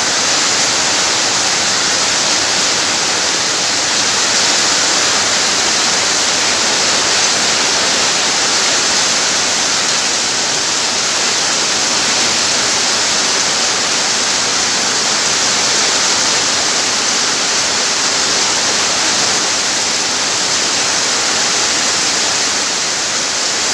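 Heavy rain falling, a loud steady hiss that does not let up.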